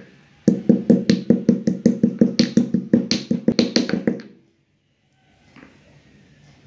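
Stone pestle pounding black peppercorns in a stone mortar. Quick, even strikes come about six a second and stop about four seconds in.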